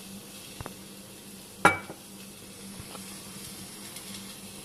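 Steady low hiss from the stovetop, with a frying pan on a lit gas burner, over a faint steady hum. One sharp clink about one and a half seconds in, and a fainter tap before it.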